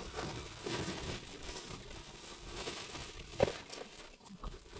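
Freshly caught fish and a cast net on the floor of a small boat: a low crinkling rustle, with one sharp knock about three and a half seconds in.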